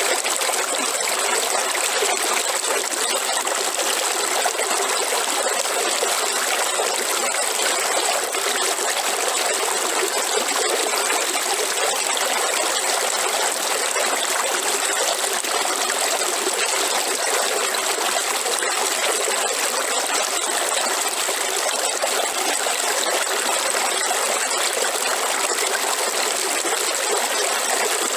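River water flowing in a steady, unbroken rush, with a thin steady high tone above it.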